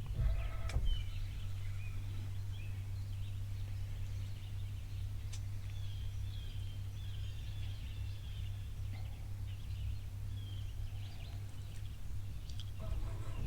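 Birds chirping and trilling over a steady low hum.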